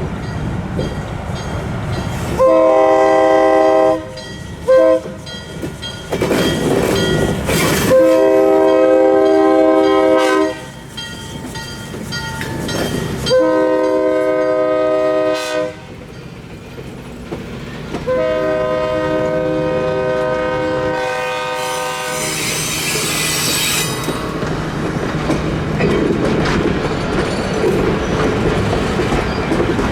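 Newport Dinner Train's locomotive horn sounding a chord: a long blast, a brief toot, then three more long blasts, over the low rumble of the train rolling by. Wheels click over the rail joints, and a hiss rises briefly near the end.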